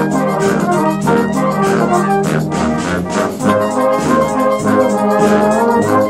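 Brass band of cornets, horns, euphoniums, tubas and trombones playing a tune together, with a drum kit keeping a steady beat.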